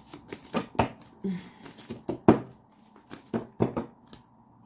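Tarot cards being handled on a table: a scatter of about ten short, sharp taps and clicks, the loudest a little past two seconds in.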